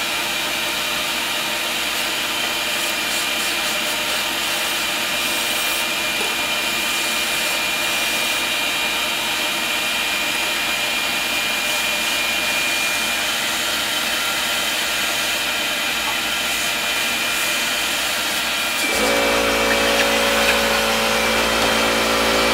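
Vacuum running steadily with the hiss of a compressed-air blow gun clearing dust out of a drilled anchor hole in a concrete foundation wall, cleaning it so epoxy will bond. About nineteen seconds in, a second, lower-pitched motor starts up and the whole sound gets louder.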